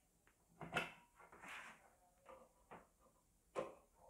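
Light clicks and knocks of a power plug and cable being handled: the induction cooker's plug is pulled from a wall socket and brought to a small power inverter. The two sharpest clicks come about a second in and near the end, with a soft rustle between.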